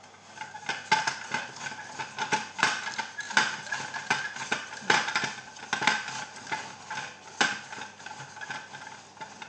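Irregular clicks and knocks of hand-handling a mousetrap car: its plywood wheels, metal DVD-drive chassis and mousetrap are handled while the fishing line is hooked round the peg on the rear axle.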